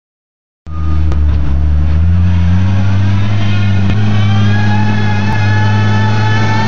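John Deere 333D compact track loader's diesel engine running hard while the machine pushes a load of dirt, its note stepping up about two seconds in. A high whine sits over the engine and climbs slightly.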